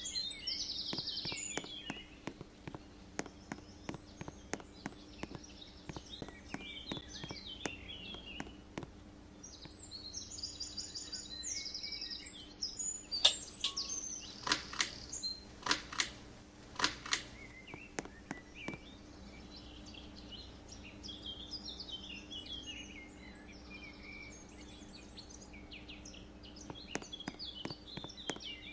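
Harbor Breeze Voyage ceiling fan running with a steady low hum, under birds chirping. Sharp ticks come in quick succession over the first several seconds, and a few louder clicks come about halfway through.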